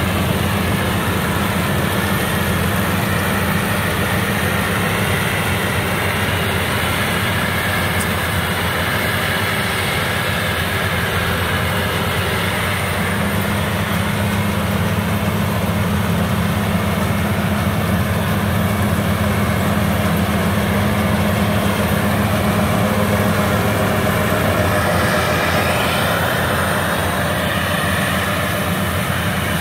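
Rice combine harvester (FM World WD102 PRO) running steadily under load as it cuts and threshes standing rice, a continuous loud engine and machinery drone.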